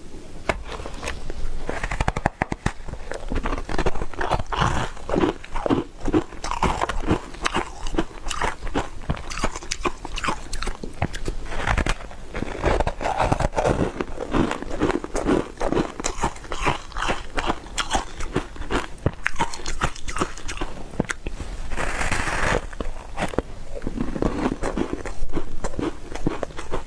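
Close-miked biting and chewing of a slab of frozen foam ice: dense, crackly crunches, bite after bite, with no pause.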